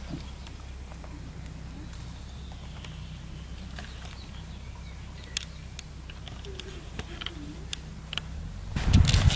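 Baby rabbit gnawing birch twigs and sprouts: scattered small crisp clicks of teeth on bark over a faint steady low hum. Near the end a loud low rumble on the microphone takes over.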